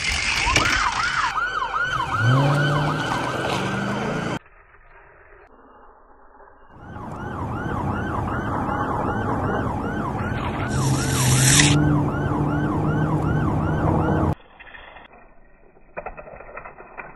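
Police siren in a fast yelp, about three to four rising sweeps a second, with a lower drone rising in pitch underneath. The siren stops about four seconds in, comes back around seven seconds, and cuts off suddenly at about fourteen seconds.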